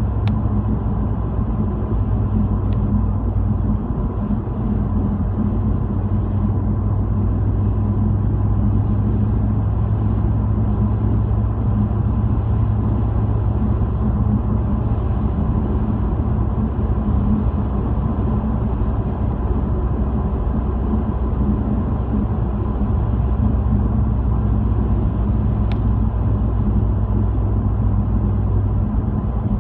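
Steady low rumble of a car's engine and tyres heard from inside the cabin while driving at an even speed on a paved road, with a couple of faint ticks.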